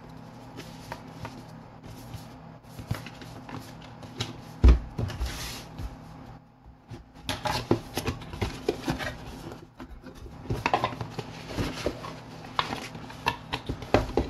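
Cardboard packaging being handled and opened: card rubbing and scraping, with short knocks and one louder thump about five seconds in.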